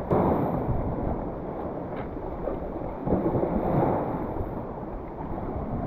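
Lake waves washing against a rocky shoreline, swelling twice, with wind rumbling on the microphone.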